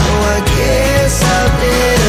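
Background music with a strong bass line and a held, bending melody over a steady beat.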